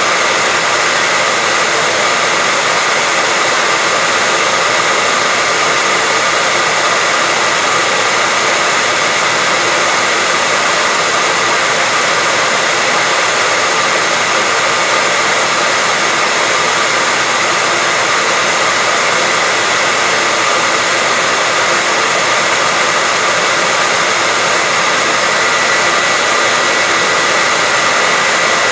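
Hair dryer running steadily: an even rushing hiss with a thin high whine, holding at one level.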